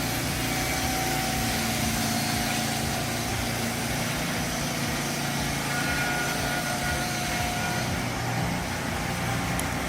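Motor-driven saw running at a steady, unchanging pitch.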